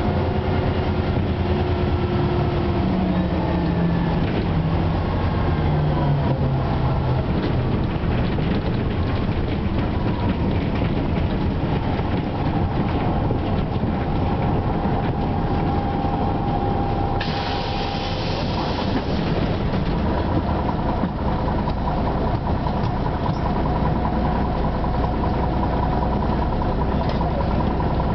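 Ikarus 260 bus's six-cylinder diesel engine heard from inside the cabin, its pitch falling as the bus slows for a stop, then running low and steady. About 17 seconds in, compressed air hisses for about two seconds.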